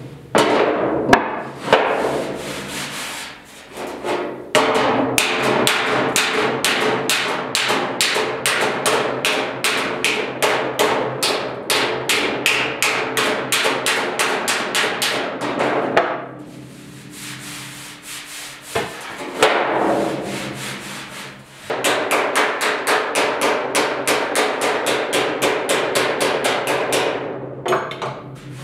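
Hammer-and-dolly work on the sheet-steel inner box side of a 1972 Ford pickup bed: rapid hammer blows, several a second, with a metallic ring, in two long runs separated by a pause of a few seconds, flattening out a distorted area of the panel.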